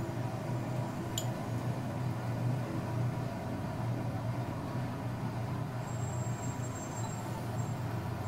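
Steady low mechanical hum over an even background hiss, with a single faint click about a second in.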